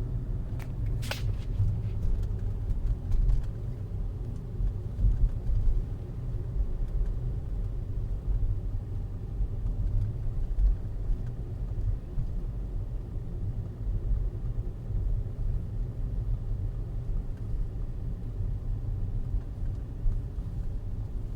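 Low pulsating hum and rumble from a BMW E61 530xd under way, a noise the owner suspects comes from the gearbox because it stops as soon as the throttle is released. A brief click about a second in.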